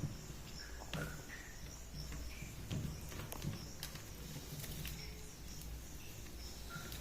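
Faint, short bird chirps, a few scattered over several seconds, with light taps and clicks over a steady low hum.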